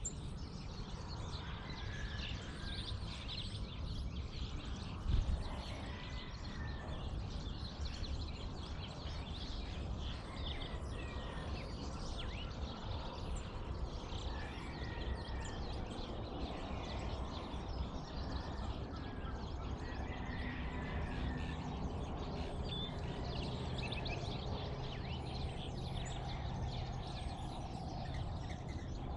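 Dawn bird chorus: many birds chirping and calling over a steady low rumble, with a single brief thump about five seconds in.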